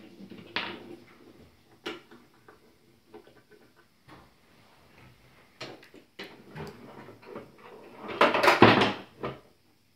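Wooden and plastic pieces of a toy train table being handled: scattered light clicks and knocks, then a louder clatter lasting about a second near the end.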